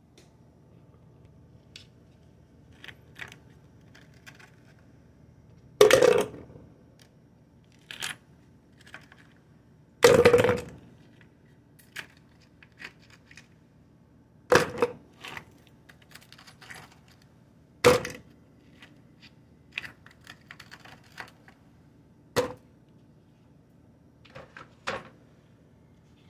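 Ice cubes being knocked out of a plastic ice tray and dropped into a clear plastic cup: a series of separate sharp clunks and clicks a few seconds apart, about eight louder ones with faint clicks and crackles between.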